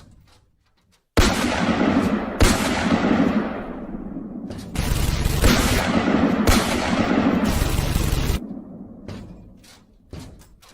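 Gunfire and explosion sound effects: a sudden loud blast about a second in, a second hit that dies away in a rumble, then a few seconds of dense, loud blasts that cut off suddenly.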